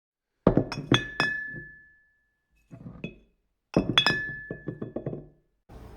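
Sharp, glassy clinks in two quick clusters about three seconds apart, with a fainter rattle between them. Several strikes leave a clear ringing note that fades out over about a second.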